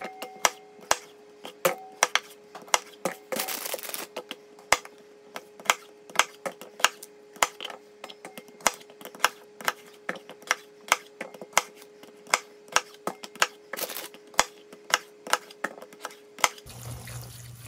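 A kitchen knife chopping red potatoes on a thin plastic cutting board: a run of sharp knocks, about two or three a second, over a faint steady hum.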